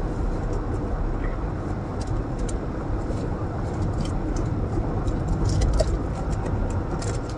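Steady low rumble inside a car cabin, with sharp crackles of a clear plastic clamshell salad container being pried open, thickest near the end.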